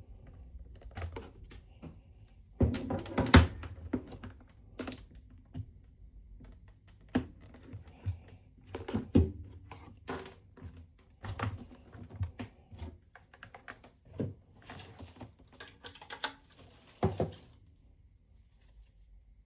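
Irregular clicks, taps and knocks of small objects being handled, with a dense cluster about three seconds in and a stretch of rustling near the end.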